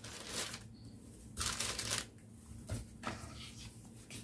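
Thin clear plastic wrapping rustling and crinkling in several short bursts as it is handled and pushed aside, while a folded cloth tote bag is pulled out and unfolded.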